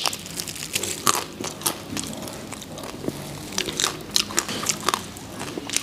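Close-up crunching bites and chewing of crisp roast suckling pig ear, with irregular crackling crunches several times a second.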